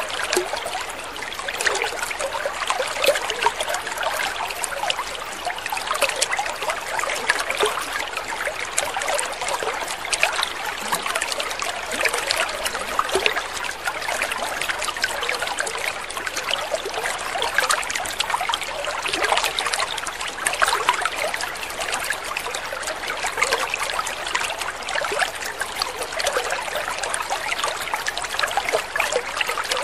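Water trickling steadily, a continuous patter of small splashes with no break.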